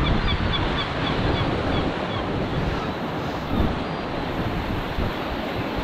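Sea surf surging and washing over coastal rocks, with strong wind buffeting the microphone in gusts.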